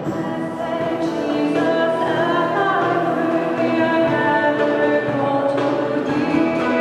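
A hymn sung by many voices together, with instrumental accompaniment; the hymn text is set to Middle Eastern scales and rhythms.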